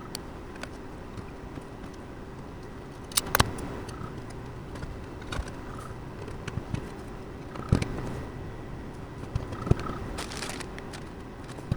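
Computer parts and a case being handled during a build: scattered sharp clicks and knocks, the loudest about three seconds in and near eight seconds, with a brief rustle near the end.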